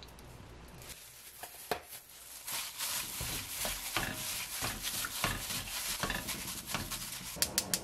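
Raw boneless chicken being mixed with oil and seasoning by a gloved hand in a nonstick wok. It begins about two and a half seconds in, after a few faint clicks, as many quick wet rubbing and stirring strokes.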